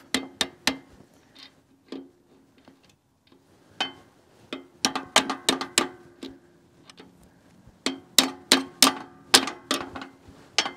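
Steel fence pliers tapping on a grease gun coupler stuck fast on a Zerk fitting, trying to knock it loose. Sharp metal clinks with a brief ring after each: a few single taps, then quick runs of taps about halfway through and again near the end. The coupler does not come off.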